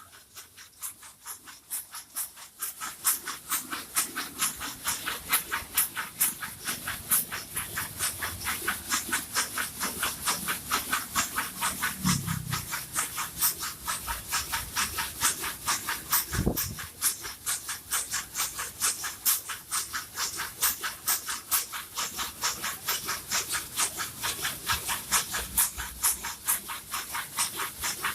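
Bamboo satay skewers clattering against each other inside a running skewer-polishing machine: a rapid, even rhythm of dry clicks, several a second, building up over the first couple of seconds.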